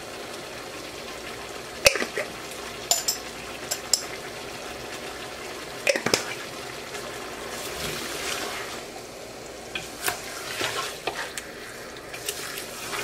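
Chicken pieces cooking in a pot with oil, onions, spices and a little water, a steady sizzle, with a few sharp clicks and knocks and a wooden spoon stirring the chicken near the end.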